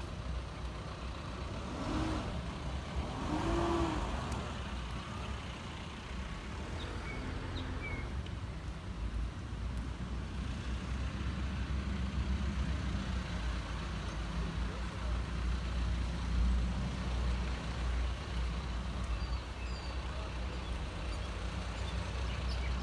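Outdoor background noise: a steady low rumble, with faint voices about two to four seconds in and a few faint high chirps a little later.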